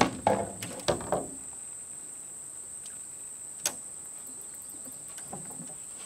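Steady high-pitched chorus of insects droning in summer vegetation. A few loud knocks fall in the first second, and there is a single sharp click a little past halfway.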